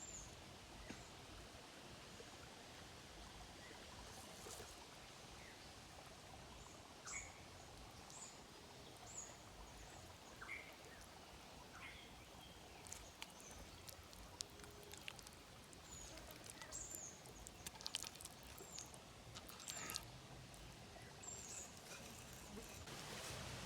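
Faint outdoor background with scattered short, high bird chirps, and a few sharp clicks in the second half.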